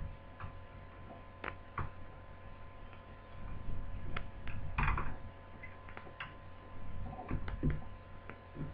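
Scattered small clicks and taps of a screwdriver driving screws into a laptop's screen assembly, over a steady mains hum.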